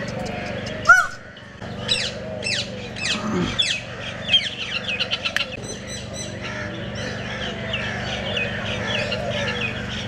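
Several birds chirping and calling: a loud call about a second in, then many quick, falling chirps, over a steady low background hum.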